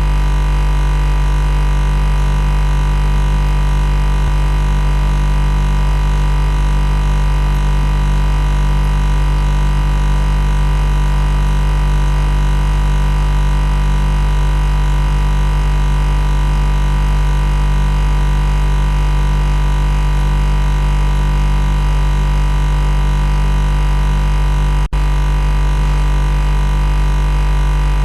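Loud, steady machine buzz: a low hum with many overtones that never changes in pitch or level, broken only by a split-second dropout about 25 seconds in.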